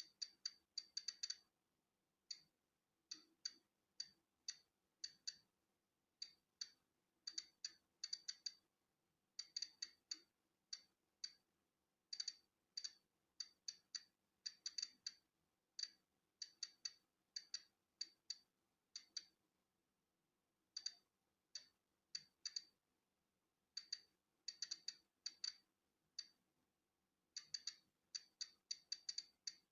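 Polon EKO-C digital Geiger counter clicking at random, irregular intervals, a few clicks a second, often bunched with short gaps between. Each click marks a detected particle from natural background radiation.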